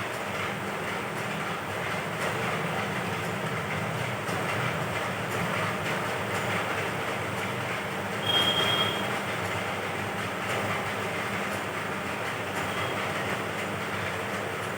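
Steady rumbling mechanical noise, with a brief high squeal about eight seconds in.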